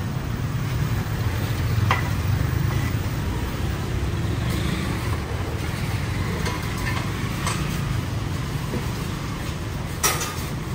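Steady low rumble of road traffic, with scattered light clicks and knocks, the sharpest near the end.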